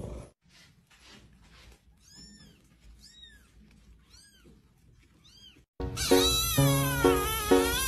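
Kitten mewing: four short, high, arching mews about a second apart. About six seconds in, loud music with a steady beat starts, with further kitten meows over it.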